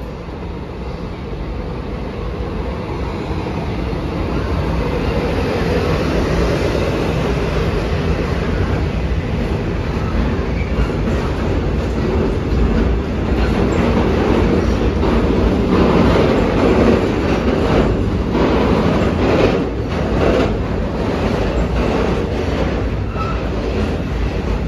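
Freight train passing close by: its rumble builds as the locomotive approaches, then the wagons roll past steadily. From about halfway on, the wheels click over the rail joints.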